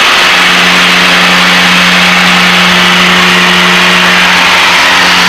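Piper Seneca's twin piston engines droning steadily in flight, heard inside the cabin as a constant low hum with an even rushing hiss over it.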